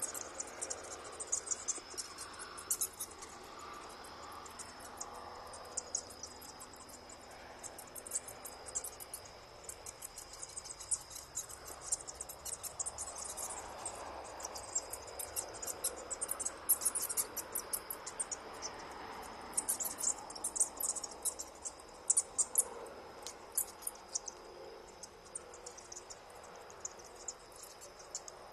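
A roosting bat colony chittering: dense, irregular, very high-pitched clicks and squeaks over a thin steady high whine.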